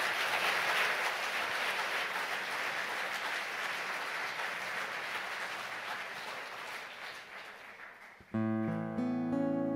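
Audience applauding, the applause slowly dying away, then an acoustic guitar starts picking and strumming the opening of a song near the end.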